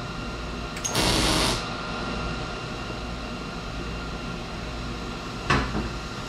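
MIG welder arc on stainless steel exhaust tubing: one short burst of welding noise, under a second long, about a second in, over steady shop background noise. A single sharp knock near the end.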